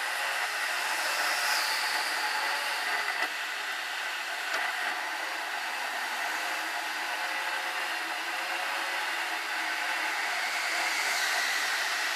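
Steady road and tyre noise from a car driving through a highway tunnel, heard from inside the car. The hiss swells near the end as an oncoming car passes.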